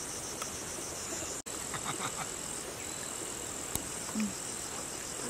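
Insects calling steadily, a high, finely pulsing trill like crickets. The sound drops out for an instant about a second and a half in, and there is one sharp click near the end.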